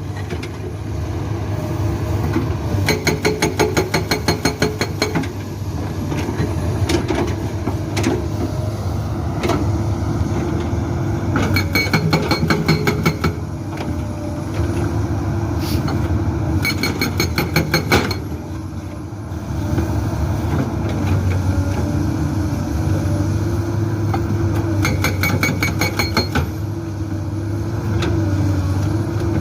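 Komatsu PC200-8 excavator's diesel engine running under load while its Soosan SB81 hydraulic breaker hammers rock in four bursts of rapid, evenly spaced blows, each lasting one to two seconds, with a few single knocks between them.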